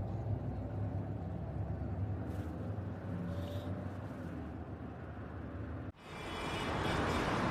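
A steady low mechanical rumble with a faint hum, like a vehicle running. About six seconds in it cuts off abruptly and a louder, even hiss takes over.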